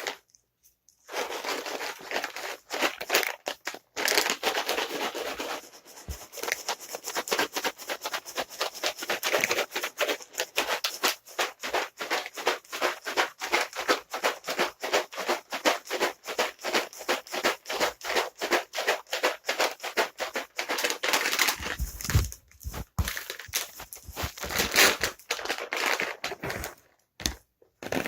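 Container of dry cat treats being shaken hard, the kibble rattling and crinkling in quick repeated strokes of several shakes a second, with a few short pauses.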